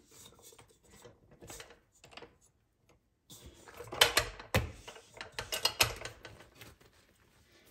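Hands pulling soft bread dough out of a stand mixer's metal bowl. Faint rustling comes first, then from about three seconds in a run of sharp knocks and clatters as the dough and hands bump the bowl and dough hook. The dough is then set down on the stone worktop.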